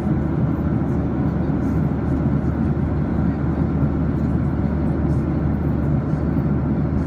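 Steady cabin noise inside a Boeing 737-800 in flight: a constant low rumble of its CFM56-7B engines and the airflow over the fuselage, heard from a window seat.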